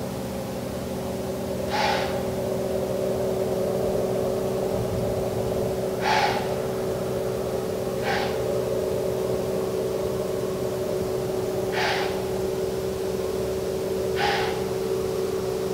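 A person breathing close to the microphone: five short, hissy breaths, two to four seconds apart, over a steady low hum.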